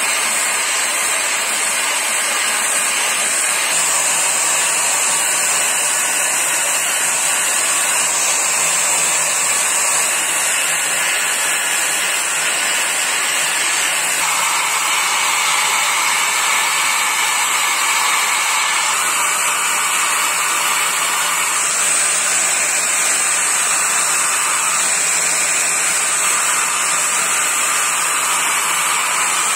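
Electric angle grinder running continuously with an abrasive disc pressed against the steel blade of a billhook, grinding and sharpening its edge: a steady high motor whine over a harsh grinding hiss, which grows coarser for a stretch in the middle.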